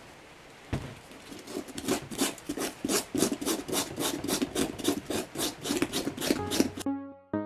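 Rapid back-and-forth rubbing or rasping strokes, about three to four a second, set off by a knock a little under a second in. Music starts near the end.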